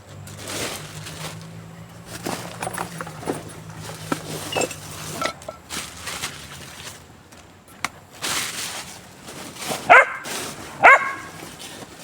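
A dog barking twice near the end, with softer yips earlier, over a low steady hum in the first few seconds.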